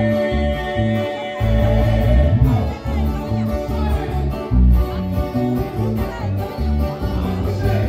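A live regional Mexican band plays a song: strummed acoustic twelve-string guitars over an electric bass line.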